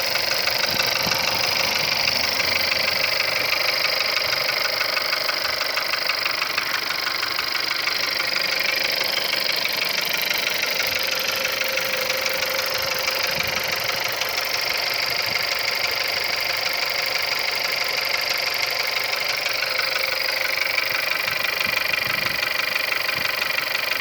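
Volkswagen-group 1.2 TSI (CJZC) petrol engine idling cold, with a steady rhythmic knocking from the engine: the cold-start knock the owner is showing.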